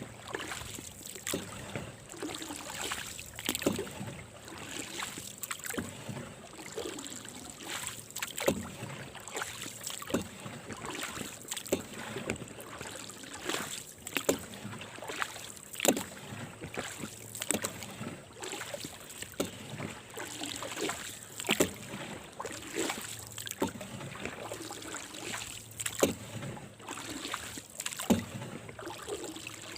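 Paddle strokes from a small boat being paddled through calm water: a sharp splash or knock about every two seconds over a steady wash of moving water.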